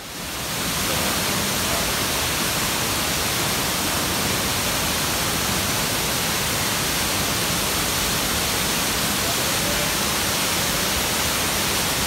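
Steady rushing of water from a nearby waterfall, an even hiss-like roar with no pauses, coming up over the first second and then holding level.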